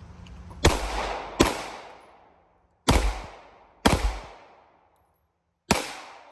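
Five gunshots fired in pairs, the two shots of a pair under a second apart and about a second and a half between pairs, each ringing out briefly after the crack. The shooter is putting two rounds on each target of a drill.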